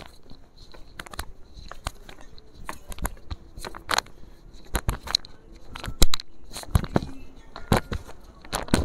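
Handling noise of a phone held close to its microphone: irregular clicks, knocks and rustles as fingers and fabric rub and tap against it, with a sharper knock about six seconds in.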